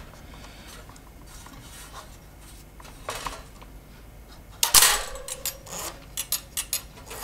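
Metal parts of a mechanical toaster's timing and ejection mechanism being handled: faint rubbing, then one sharp clack a little past halfway, followed by a run of light clicks.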